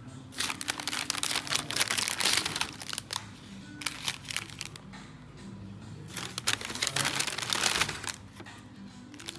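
Two long spells of crinkling and rustling, as of packaging or a bag being handled, over soft background music.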